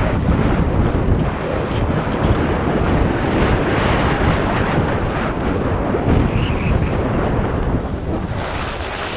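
Wind rushing over a GoPro microphone at skiing speed, mixed with skis running over packed snow. The hiss turns sharper near the end.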